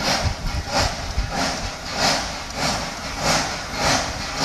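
Ol49 steam locomotive pulling away from a station: slow, even exhaust chuffs, a little under two a second, over a low rumble.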